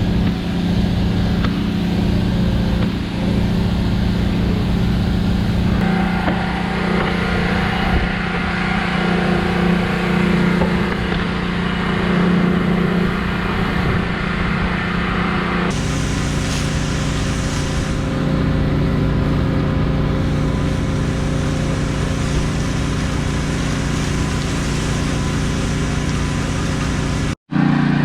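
An engine running steadily at constant speed, with a rushing hiss over it that grows louder about six seconds in and changes about ten seconds later; the sound cuts out for a moment near the end.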